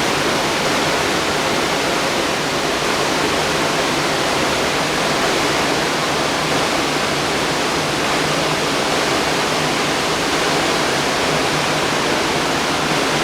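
Waterfall: water pouring and splashing in a steady, dense rush that does not change.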